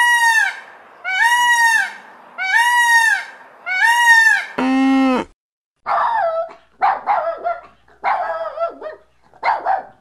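A peacock calling four times, loud ringing calls about a second apart. Then a short flat lower tone, and from about halfway a puppy giving a run of short, high barks and yaps.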